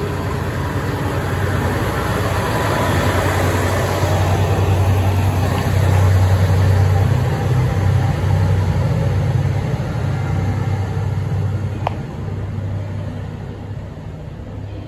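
KiHa 150 diesel railcar pulling away: a low, steady diesel drone with wheel and rail noise. It swells about halfway through as the engine works to accelerate, then fades as the railcar draws off into the distance, with a brief click near the end.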